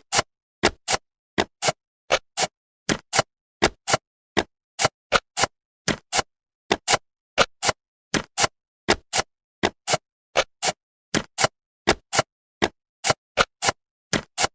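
Jigsaw puzzle piece sound effects: short, sharp clicks repeating irregularly about two to three times a second, with silence between them, as the pieces snap into place.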